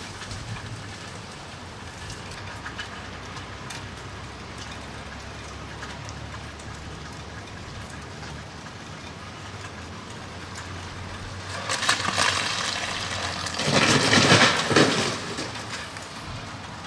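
Freezing rain falling steadily as an even hiss. Near the end come two louder rushing swells, the second stronger and longer.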